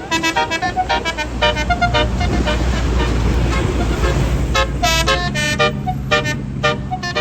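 Tour bus's Basuri telolet horn playing a quick melody of short, pitched toots, with the bus engine rumbling underneath. The notes thin out in the middle, then come back in a loud burst about five seconds in.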